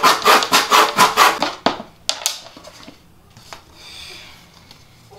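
Handsaw cutting through a thin wooden board in quick, even strokes that stop about a third of the way in as the cut finishes. A couple of sharp clicks and light handling of the cut piece follow.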